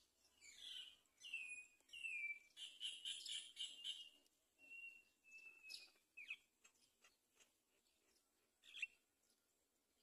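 Bird calls: a few short chirps sliding down in pitch, a harsher buzzing call about three seconds in, then thin held whistles and quick upward chirps, with one sharp chirp near the end the loudest.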